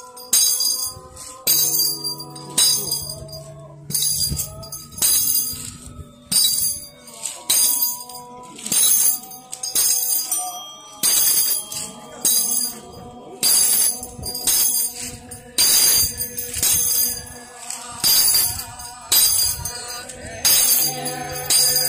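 Shakujō, a Buddhist ringed metal staff, jangling as it is struck on the ground in a walking rhythm: a sharp jingle of loose metal rings about once or twice a second, over sustained steady tones.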